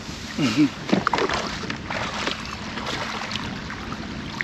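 Water and wind around a fishing kayak while a hooked bass is fought. Scattered sharp clicks and splashes come mostly in the first couple of seconds, with a short wavering vocal sound about half a second in.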